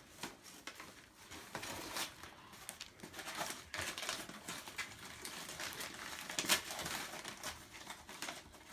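Wrapping paper crinkling and tearing as a present is unwrapped by hand: irregular rustles and rips, the sharpest a little past halfway.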